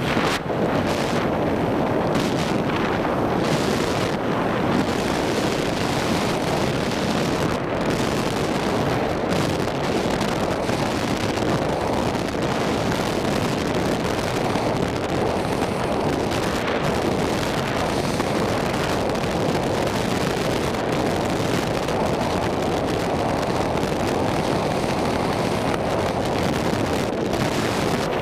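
Steady rush of freefall wind buffeting the microphone during a tandem skydive, with no break or change throughout.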